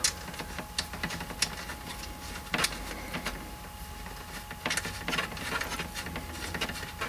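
Fingers screwing a coaxial cable's F-connector onto the threaded coax port on the back of a cable modem: irregular small clicks and scrapes, with a couple of louder clicks.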